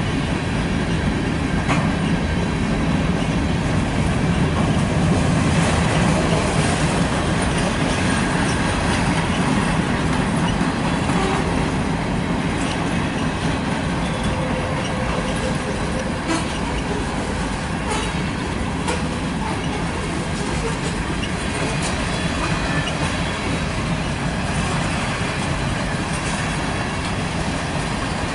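CSX manifest freight train of covered hopper cars rolling past steadily. Its wheels on the rail make a continuous low rumble with scattered sharp clicks.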